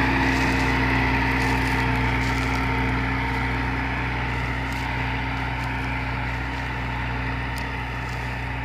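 Landini 7550 70-horsepower tractor's diesel engine running steadily under load while pulling a mounted plough through the soil. The sound slowly fades as the tractor moves away.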